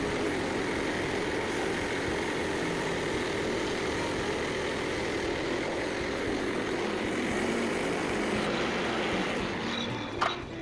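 Frontier OS27 band sawmill's gas engine running steadily at speed; the sound eases off near the end, followed by a couple of sharp clicks.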